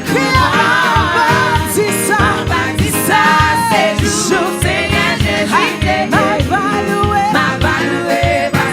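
Gospel praise music: voices singing over a band with a steady beat.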